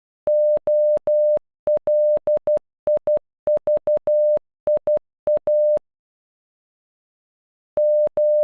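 Computer-generated Morse code beeps in one steady tone spelling OLIVIA (--- .-.. .. ...- .. .-), short dots and long dashes that end about six seconds in. After a two-second gap, dashes start again near the end as the word begins to repeat.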